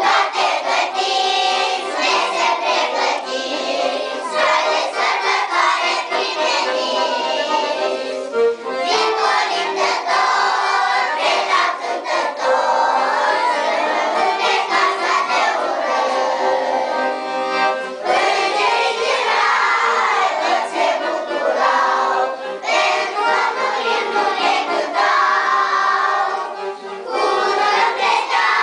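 A group of young children singing a song together, with steady held-note instrumental accompaniment underneath.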